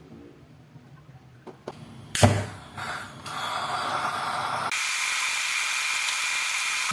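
Meat pieces frying in oil in a stainless steel wok, starting to sizzle about three seconds in and becoming a loud steady sizzle from about five seconds in. A single sharp clack about two seconds in.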